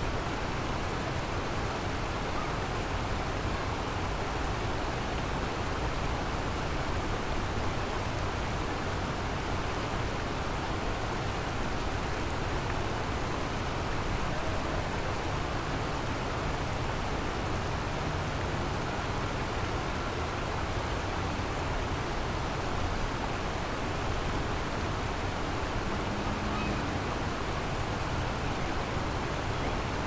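River water rushing steadily over the shallow riverbed of the Kamo River, an even, unbroken wash of noise.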